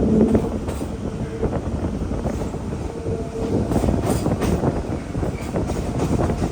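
Train running along the track: a steady rumble with many small clicks of the wheels over the rails.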